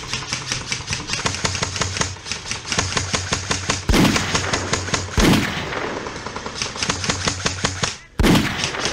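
Airsoft rifles firing rapid full-auto strings, a fast even patter of shots about a dozen a second, with three louder thumps partway through.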